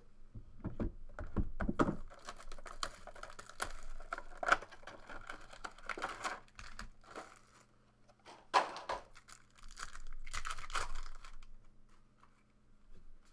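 Crinkling and tearing of trading-card packaging as a box of basketball cards is opened and a pack unwrapped, with irregular rustles and sharper crackles. There are a few low knocks of cardboard about a second in.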